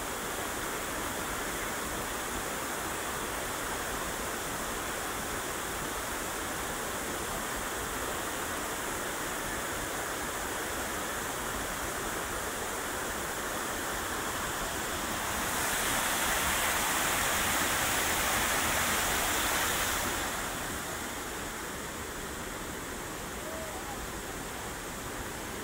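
River water rushing and churning over a shallow, rippling bed, a steady noise that grows louder for about five seconds two-thirds of the way through.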